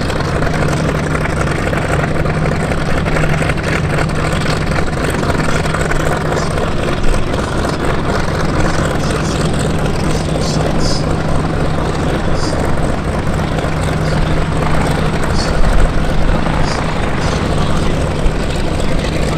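Westland Sea King helicopter's main rotor and twin turbines running as it flies a low display, a steady loud rush with a constant low hum.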